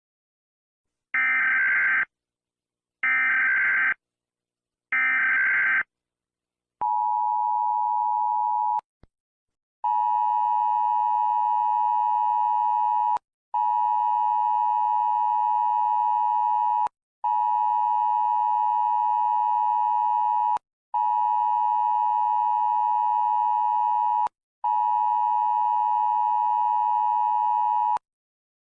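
Emergency-alert (EAS-style) tsunami alarm tones. First come three short buzzy data-like bursts about a second apart, then a two-second tone. After that a steady electronic tone of about 1 kHz sounds in five long blasts of about three and a half seconds, with brief breaks between them.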